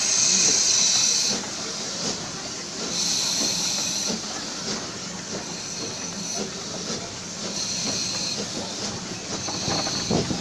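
Small saddle-tank steam locomotive hissing out steam in repeated bursts, the loudest right at the start, another about three seconds in and more near the end, over a low steady rumble.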